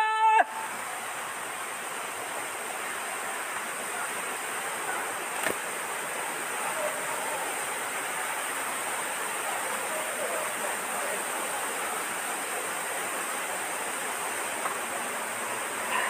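Waterfall rushing steadily: an even hiss of falling water.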